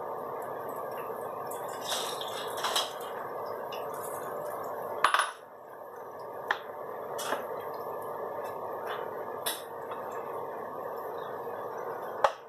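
A metal serving utensil scraping and clinking against a stainless steel pan while stirring a thick chicken stew. A scattering of sharp clinks sounds over a steady hiss, loudest about five seconds in and again just before the end.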